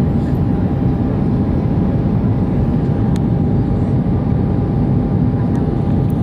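Steady roar of engines and airflow inside the cabin of an Airbus A319 in flight, heaviest in the low range, with a thin steady whine on top.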